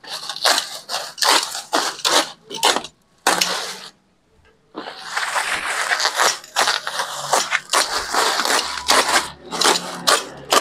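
Plastic bubble wrap being cut and pulled off a cardboard carton: a run of sharp crackles and rustles. It stops for about a second near the middle, then the wrap crinkles continuously as it is torn away.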